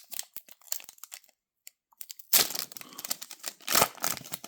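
A trading-card pack wrapper being torn open and crinkled in the hands. The crackling stops briefly about a second in, then comes back louder.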